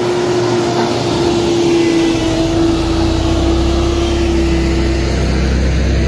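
Dynapac single-drum road roller's diesel engine running close by, with a steady whine that stops about five seconds in. A deep, steady rumble comes in about two seconds in.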